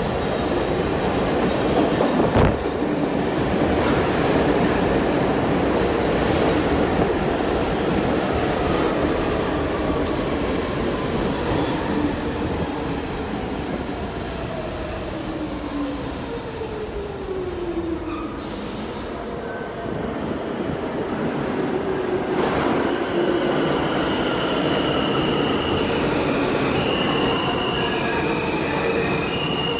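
R46 subway train running on the rails with a steady rumble and a sharp clack a couple of seconds in. Midway a whine slides down in pitch, and high-pitched wheel squeal comes in near the end.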